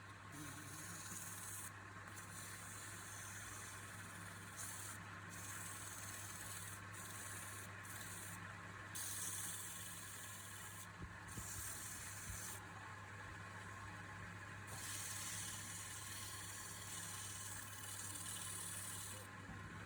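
Wood lathe running with a steady motor hum, while a hissing, rubbing scrape against the spinning wood comes and goes every second or few seconds, typical of sanding or tool work on a turned piece.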